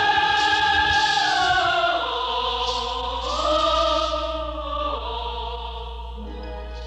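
Slow, solemn choral music with long held chords that change every second or two, gradually fading out.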